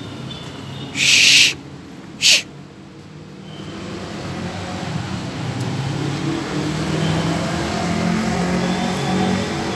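Two short, loud hissing noises about a second apart, the first lasting about half a second and the second briefly. After them a steady background din grows louder.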